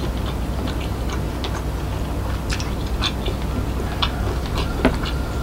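Close-miked eating sounds: a person chewing a mouthful of rice and soy-sauce egg, with scattered small wet clicks of mouth and fingers in the rice. The sharpest click comes near the end, over a steady low hum.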